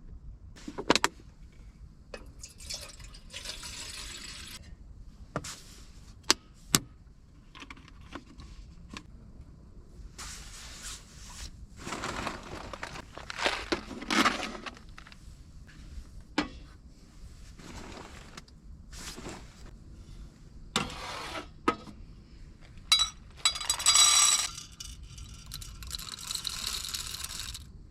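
Objects being handled: scattered sharp clicks and clinks between bursts of rustling and scraping.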